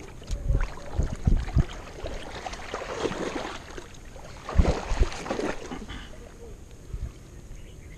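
Water slapping and sloshing against a small boat's hull, with several dull knocks of the boat, a few of them in quick succession.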